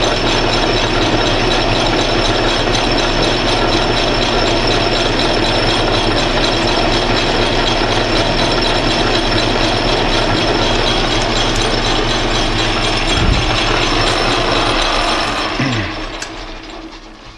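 Atlas metal lathe running steadily while facing the end of a small brass tube held in its chuck. It spins down near the end, its pitch falling as the chuck coasts to a stop.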